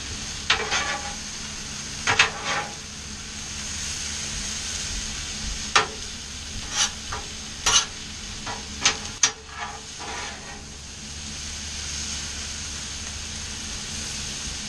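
Mushrooms and chopped vegetables sizzling on a Blackstone flat-top griddle while a metal spatula stirs them, scraping and tapping on the griddle top. The strokes come at irregular intervals and are busiest from about six to ten seconds in.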